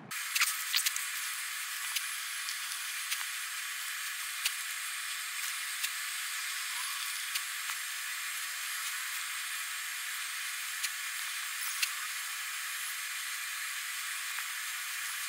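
Steady thin, high hiss with scattered sharp ticks and clicks as orange-gloved fingers work thick gasket sealant around a lathe headstock's cover flange. A cluster of the loudest ticks falls about half a second in.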